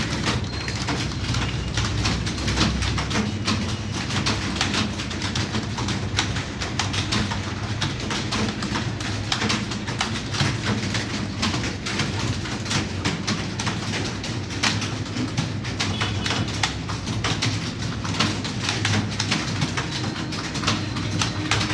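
Rapid typing on a computer keyboard, keys clicking irregularly several times a second, with a steady low cooing underneath.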